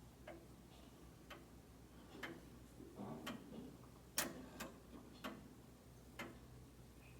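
Herschede tube-chime grandfather clock ticking faintly, about one tick a second, with a sharper click a little past four seconds in.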